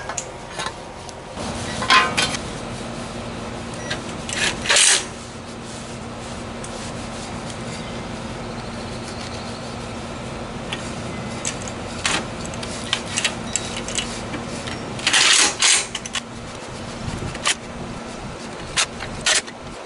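Irregular rubbing and scraping noises in short bursts over a steady air-conditioner hum that starts about a second and a half in.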